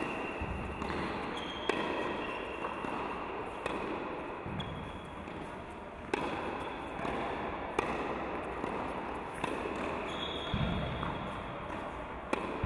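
Tennis racket striking the ball in a volley exchange on an indoor hard court: sharp pops about every one and a half to two seconds, seven or eight in all.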